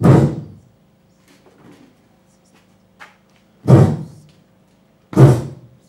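Three loud, short blasts into a handheld microphone, at the start and twice near the end, each fading within about half a second.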